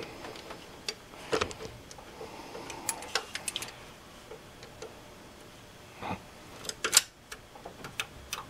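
Scattered light clicks and knocks of hands and metal working at a coolant hose and its clamp on an engine's water pump. The loudest knocks come about six to seven seconds in.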